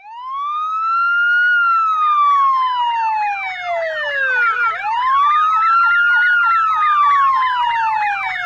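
Ambulance siren wailing in two slow cycles, each rising quickly and then falling slowly over about four seconds, with a faster sweeping siren tone layered underneath.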